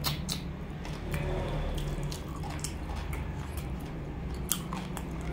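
Close-up wet chewing and lip-smacking of a mouthful of boiled chicken: a string of short, sharp wet mouth clicks, the sharpest about four and a half seconds in.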